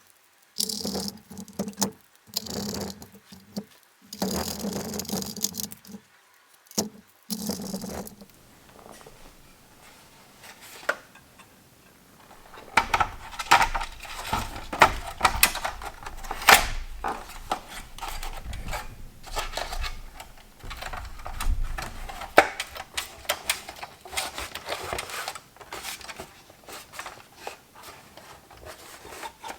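Hands working on a PS3 Slim's internals. A run of short rubbing strokes in the first several seconds, then irregular clicks, taps and rattles of small parts being handled.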